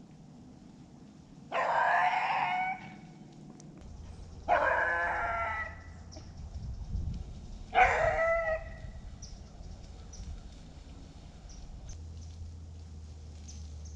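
A rooster crowing three times, each crow a little over a second long and a few seconds apart.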